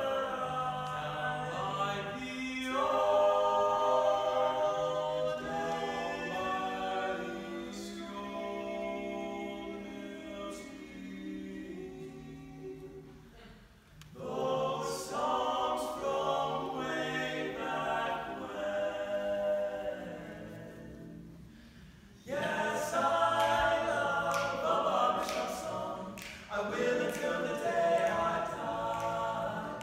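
Male barbershop quartet singing a cappella in close four-part harmony, holding chords in long phrases. The singing thins out and breaks off twice, about halfway through and again about two-thirds of the way through, each time coming back in with a full chord.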